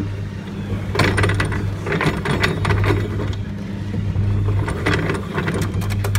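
Bafco mini train kiddie ride running with a steady low hum and bursts of clicking and rattling from its mechanism. The clicking comes in short clusters and grows quicker and denser near the end. The ride makes none of its intended train sounds: it is mute.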